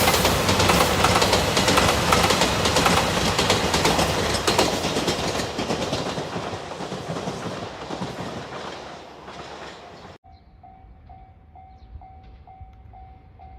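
A train passes over a level crossing, its wheels clattering over the rail joints, and the noise fades as it moves away. About ten seconds in the sound cuts off abruptly and a level-crossing warning bell is heard ringing about twice a second.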